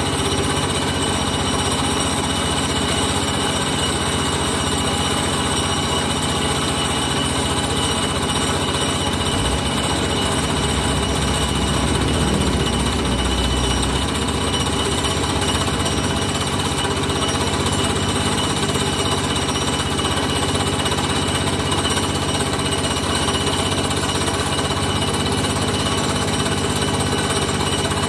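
A loud machine running steadily without a break, with an extra deep rumble for a few seconds near the middle.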